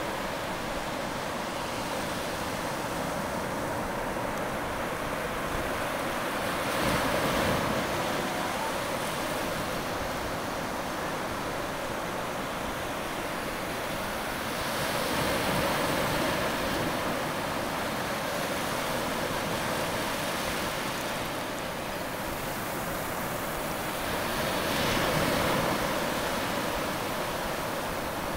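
Shallow waves washing over sand at the water's edge: a steady rush of water that swells three times, each surge building and falling away over a few seconds.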